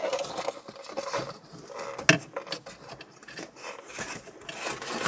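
Rustling and light clicking of a wiring harness and plastic interior trim being handled as the wire is tucked into place, with one sharp click about two seconds in.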